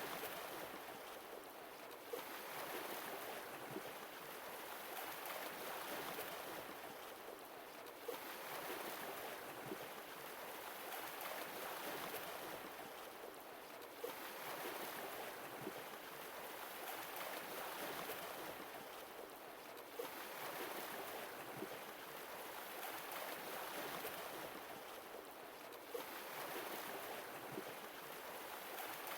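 Sea waves washing ashore, a wash that swells and eases about every six seconds, with a faint click as each swell begins.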